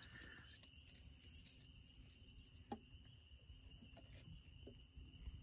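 Near silence: faint background with a thin, steady high-pitched tone and a few soft clicks.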